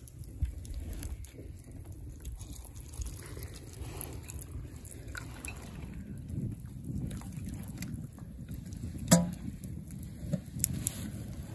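Hot water poured from a stainless steel camp kettle into a mug, with scattered small clicks and one sharp clink about nine seconds in.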